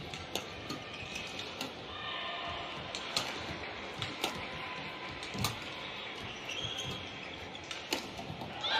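Badminton rally: sharp racket strikes on the shuttlecock about every second or so, with shoes squeaking on the court floor. A louder burst of noise comes just before the end.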